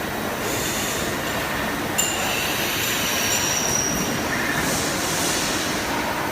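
CNC machine tool cutting metal: steady machining noise with high-pitched tool squeal that sets in after a sharp tick about two seconds in.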